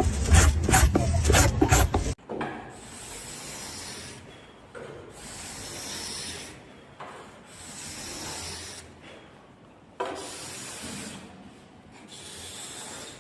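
Rhythmic scraping strokes, about three a second, then about two seconds in a sudden change to softer, slower rubbing strokes, each lasting a second or two.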